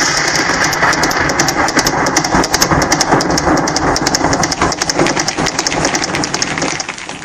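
Audience applauding, a dense patter of hand claps that cuts off suddenly near the end.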